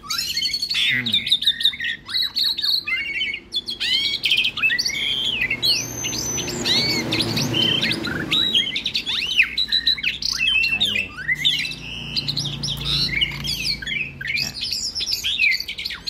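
Recorded white-rumped shama (murai batu) song played back at full volume: a continuous run of quick, varied whistles, slurred glides and trills. A caged Asian pied starling calls back to it, bill open, being worked up to sing.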